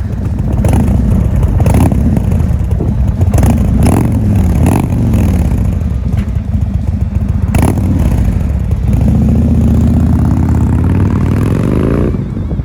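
Indian Thunder Stroke 116 V-twin motorcycle engine running loud through its exhaust. It revs up and down with a few sharp cracks, then climbs steadily in pitch near the end.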